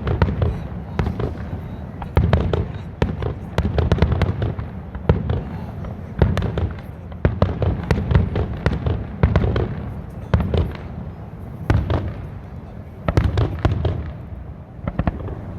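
Aerial fireworks: a rapid, irregular barrage of booming shell bursts and sharp crackling reports, several each second.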